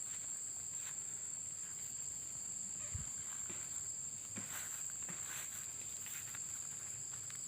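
Steady high-pitched drone of insects such as crickets in overgrown vegetation, with scattered crunching footsteps through brush and leaves, and one dull thud about three seconds in.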